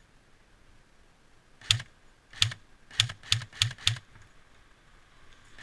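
Airsoft gun firing single shots: six sharp snaps, the last four in quick succession, and another at the very end.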